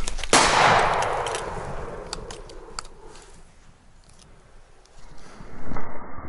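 A single shotgun shot about half a second in, its report echoing through the woods and dying away over about two seconds, followed by a few light clicks.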